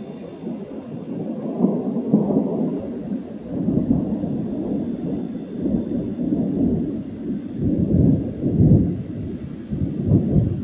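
Thunder rolling in a long, low rumble that swells and fades several times, loudest near the end.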